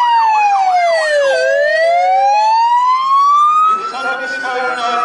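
Electronic sirens on HM Coastguard vehicles. One runs a slow wail, falling, then rising, then beginning to fall again. A second runs a fast yelp that stops about a second and a half in, and about four seconds in a further set of steady, stepping tones joins.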